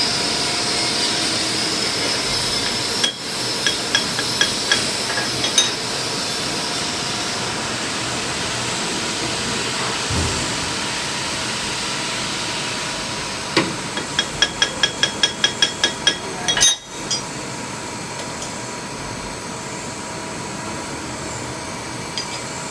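Steady machine-shop hum around a VMC milling machine, with light metallic taps: a few spaced taps a few seconds in, then a quick run of about a dozen taps past the middle.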